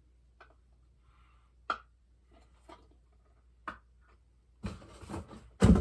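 Small toy pieces being handled and fitted together: scattered light clicks and taps about once a second, then a burst of rustling handling noise and a loud knock near the end.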